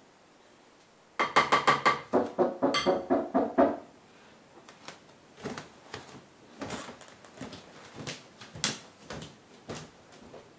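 Doorbell chime ringing a short run of ringing notes, the first ones higher and the later ones lower, about a second in. It is followed by faint scattered footsteps and light clatter.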